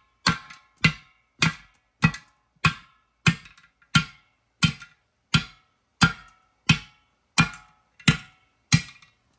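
Hammer blows knocking old studs out of a beadlock wheel: about fourteen evenly spaced metal-on-metal strikes, a little under two a second, each ringing briefly, stopping just before the end.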